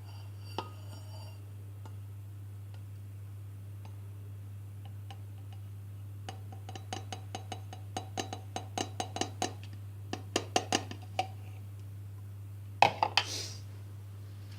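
A fast run of sharp metallic clicks with a slight ring, about four or five a second, getting louder over several seconds, then two or three louder knocks near the end, over a steady low hum.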